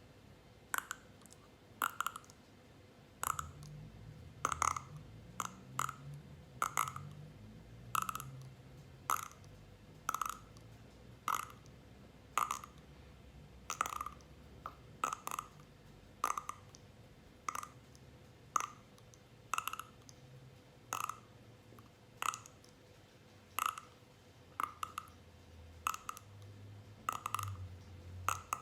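Sharp cracking pops from a person's neck joints, repeated about once a second with some in quick pairs.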